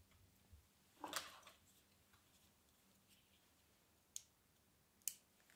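Faint handling noise from the laser module's thin wires and a plastic AA battery holder being handled: a brief rustle about a second in, then two sharp small clicks near the end.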